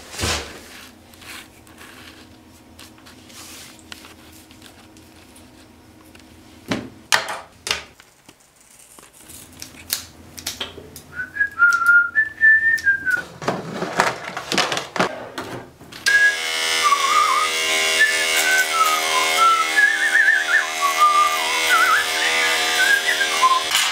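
A man whistling a wandering tune while trimming his beard. There are a few sharp scissor snips in the first half. About two-thirds of the way in, electric hair clippers start up with a loud steady buzz and keep running under the whistling.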